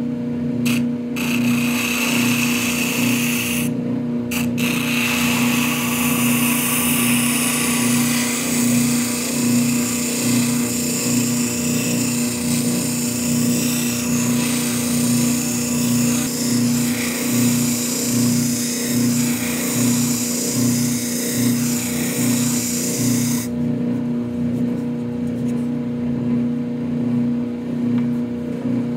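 Oscillating spindle drum sander running with a steady motor hum while a wooden spoon is pressed to the sanding drum, adding a hissing rasp of wood being sanded. The rasp breaks off briefly about four seconds in and stops several seconds before the end, leaving only the sander running.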